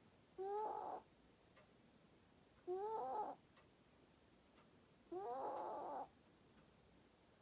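Snoring in three regular breaths about two and a half seconds apart, each a squeaky, whistling tone that rises in pitch and lasts under a second.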